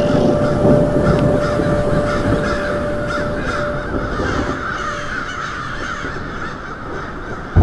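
A flock of crows cawing, many calls overlapping in a dense chatter, over a steady held tone that fades out about five seconds in.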